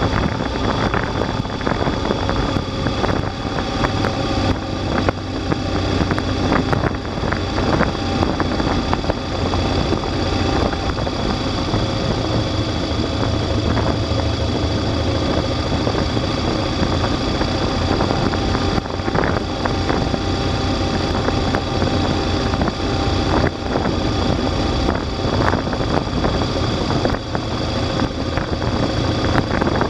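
Motorcycle engine running steadily at low road speed, heard from a camera mounted on the bike itself.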